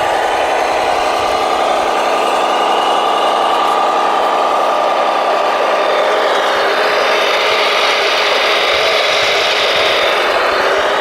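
Large remote-controlled construction machine running steadily, a continuous engine-like drone with a whine. A higher hiss joins about six seconds in and fades near the end.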